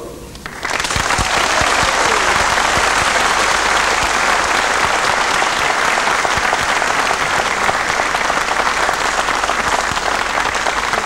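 Large audience in a hall applauding steadily, the clapping breaking out about a second in after a graduate's name is called.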